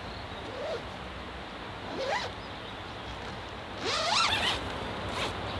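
Tent door zipper pulled in short strokes, each rising in pitch as it runs; the third and longest pull, about four seconds in, is the loudest.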